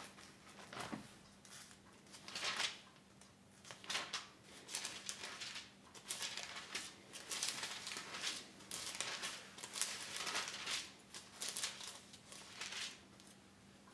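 Thin Bible pages being leafed through and turned by hand: a run of soft paper rustles and flicks.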